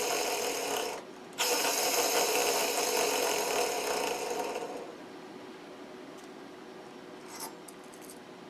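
A worn front wheel-hub bearing from a 2010 Ford Explorer spun by itself, giving a rough, noisy whir: a short spin of about a second, then a longer one of about three seconds that dies away. This is the noise the failing bearing made on the car. A few light clicks follow near the end.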